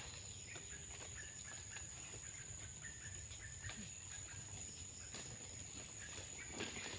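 A steady, high-pitched chorus of insects that never lets up.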